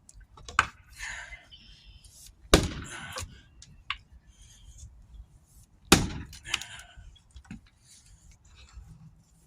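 Tasmanian-pattern axe striking a knotty log. There are two heavy chopping blows about three seconds apart, each with a brief crackling tail, and a few lighter knocks around them.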